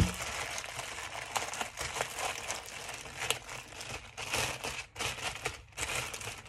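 Plastic wrapping crinkling and rustling as it is worked off a cylindrical air purifier filter, with a single sharp knock at the very start.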